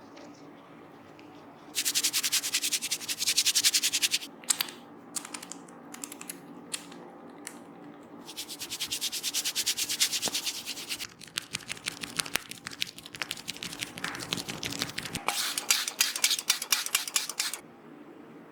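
Hands rubbing fast and hard through hair and over the scalp in a head massage, a rasping friction sound in bursts of two to three seconds, with separate sharp clicks between them.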